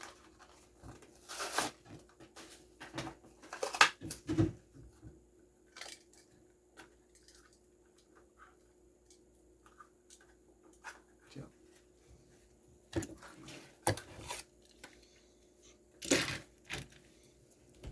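Scattered crackling, clicking and tearing of a toy car's plastic blister pack and cardboard backing being handled and opened, with the loudest crackles near the start and again in the last few seconds.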